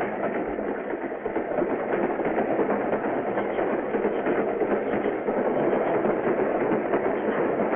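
Steady running noise of a moving freight train.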